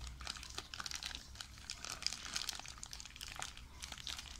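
Clear plastic bag around a toy train crinkling as hands handle it and work it open, a faint run of small irregular crackles.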